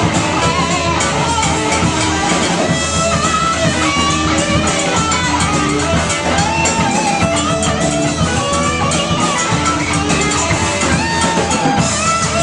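Live rock band playing loudly: electric guitars over a Tama drum kit, with a melodic line that bends in pitch.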